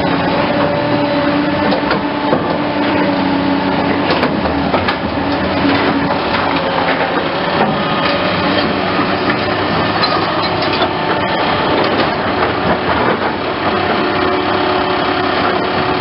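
Big excavator running: a loud, continuous engine and machinery sound with a steady hum that shifts in pitch partway through, and scattered knocks.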